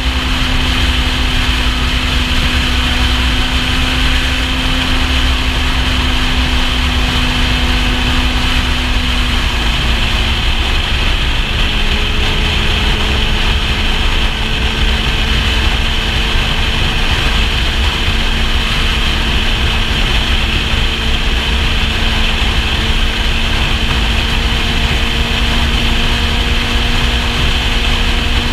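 Kawasaki Z750's inline-four engine running at steady highway cruising speed, heard with heavy wind rumble on the helmet-camera microphone. The engine note dips slightly about ten seconds in, then slowly climbs again.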